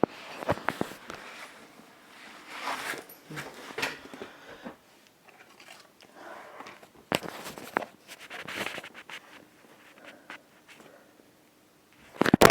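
Phone handling noise while walking indoors: scattered clicks, rustles and footsteps. Near the end comes a loud sharp clatter, the phone falling.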